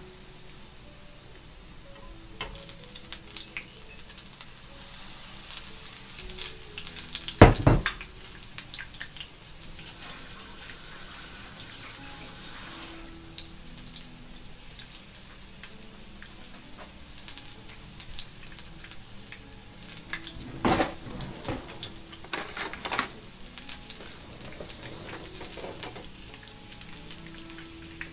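Battered shrimp deep-frying in hot oil in a skillet: a steady sizzle with crackling pops. A loud knock comes about seven seconds in, and a few more knocks come around twenty seconds in.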